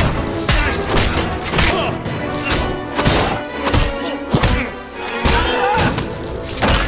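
Action-film fight soundtrack: orchestral score under a rapid series of punches, thuds and crashing hits.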